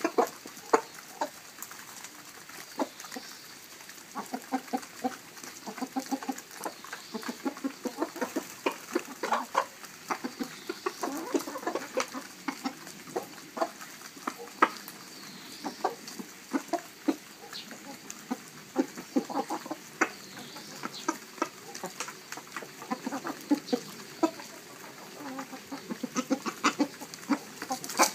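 A flock of domestic hens clucking in short, repeated calls while they feed, with many quick taps of beaks pecking at grain on the ground.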